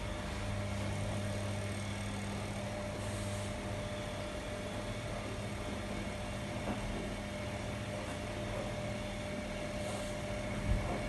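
Primus RS16 front-loading washing machine running a wash, its drum tumbling wet clothes, with a steady motor hum. A short thump comes near the end.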